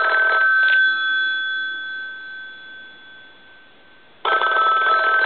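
Western Electric rotary desk telephone's bells ringing on an incoming ring signal, a ring test of the repaired ringer. The rapid ringing stops about a second in and the gongs ring out and fade, then it starts ringing again about four seconds in.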